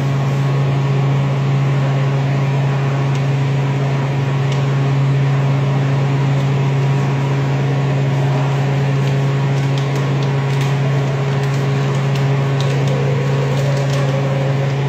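Wall-mounted electric fan running, a loud, steady motor hum with a few faint clicks over it.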